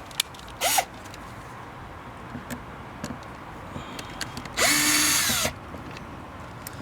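Power drill backing out Phillips screws from a car door panel: a short blip of the motor, then a run of about a second that spins up and winds down, with a few light clicks between.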